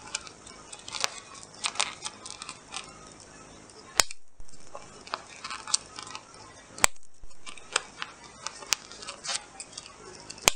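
Handheld single-hole punch snapping shut as it punches holes through a plastic-covered paper sheet. About five sharp clicks, a second or more apart, with lighter clicks and rustling of the sheet between them.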